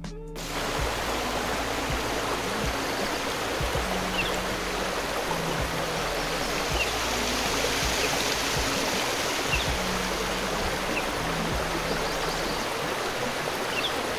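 Steady rush of a waterfall, a constant even roar of falling water, starting a moment in, with low sustained music notes beneath it.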